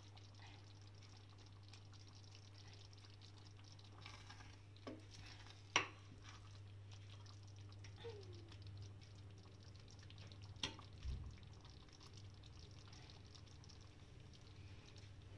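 Wooden spoon stirring through thick, wet cooked wheat in a metal pot, faint and squelchy, with a few sharp knocks of the spoon against the pot, the loudest about six seconds in. A steady low hum lies underneath.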